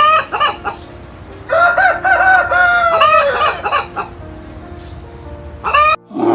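A rooster crowing: a few short notes, then a long held note about a second and a half in that drops away at its end, over soft background music.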